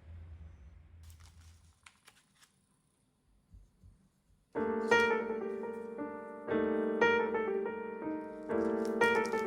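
A few faint clicks over a low hum, then piano music starts about halfway through and plays chords to the end.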